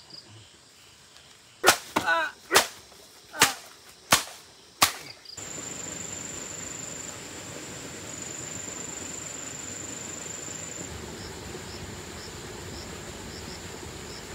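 Six sharp cracks in quick succession over about three seconds, then a steady outdoor ambience of insects: a continuous high buzz, joined later by faint short chirps about twice a second.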